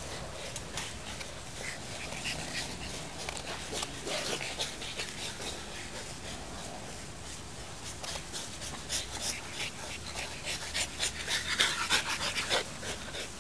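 French bulldog puppy panting in quick short breaths, louder and faster toward the end.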